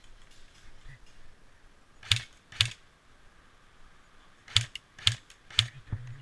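Airsoft gun fired in single shots: five sharp pops, two about half a second apart and then, after a two-second pause, three more at the same pace, with a fainter click near the end.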